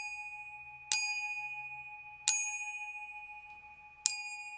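Two nearly identical steel conga tuning wrenches struck together with a thin metal beater, ringing like finger cymbals. There are three strikes, about a second and a half apart, each a bright ring that dies away slowly. The two close but unequal pitches make a slight wavering beat in the ring.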